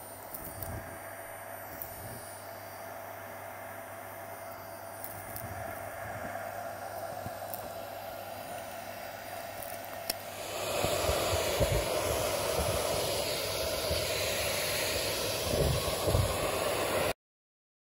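Dyson Light Ball upright vacuum cleaner running, its wand sucking up a pile of carpet fluff with a steady rushing hiss of airflow. The suction gets louder about ten seconds in, with a few low thumps, then cuts off suddenly near the end.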